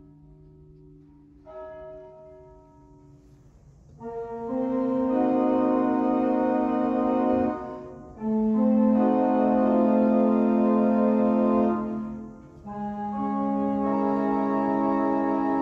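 Church organ playing slow held chords: soft sustained notes at first, then fuller and louder chords from about four seconds in, in phrases with short breaks between them.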